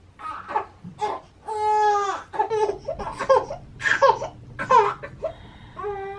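A young child's high-pitched wordless cries: a string of short calls with one longer, drawn-out call about a second and a half in.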